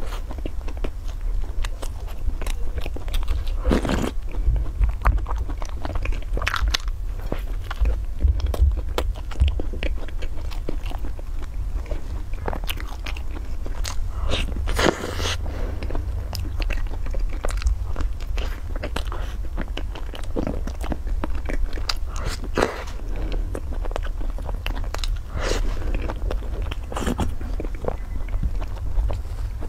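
Close-miked biting and chewing of a flaky layered pastry, with irregular crisp crunches, the loudest about 4 and 15 seconds in.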